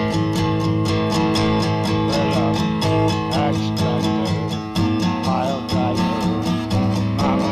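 Acoustic guitar strummed in a steady, even rhythm of chords.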